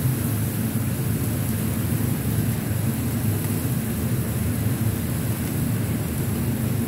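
Handheld kitchen blowtorch burning steadily, a continuous hiss with a low rumble, as its flame is played over grilled squid.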